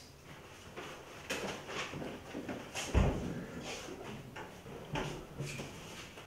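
A room door being handled and opened among scattered footsteps and small knocks, with a dull thump about three seconds in as the loudest sound.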